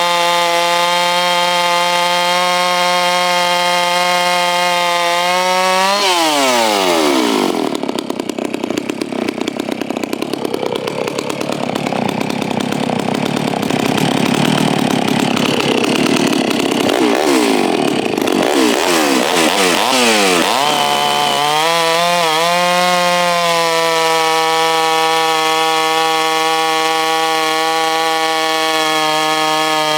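Stihl MS660 (066) two-stroke chainsaw running steadily at full throttle. About six seconds in it drops sharply in pitch as it is pulled down into a cut through wood, for roughly fourteen seconds, then revs back up to the same high speed once free. The rebuilt saw is running strongly.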